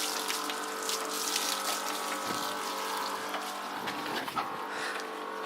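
Kärcher electric pressure washer running, its pump motor humming steadily while the water jet sprays, rinsing soap off a car's bodywork.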